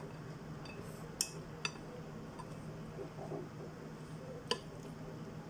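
Cutlery clinking against a dish while eating salad, three short sharp clinks.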